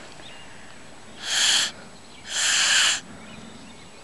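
Two breathy blows through a blade of grass held between cupped thumbs, about a second in and again near two seconds in, mostly a rush of air with no clear whistle tone: the grass blade is not catching into a squeal.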